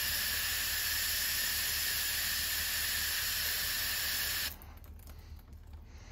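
Aerosol can of wasp killer spraying a steady hissing jet, which cuts off suddenly about four and a half seconds in.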